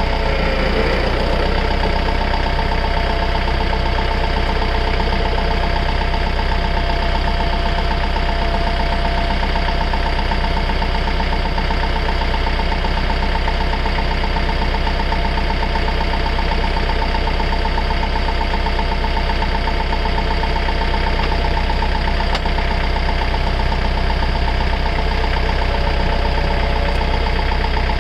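Compact tractor's diesel engine idling steadily while the front loader's hydraulics lift and curl the bucket, with a brief wavering whine near the start and a single click late on.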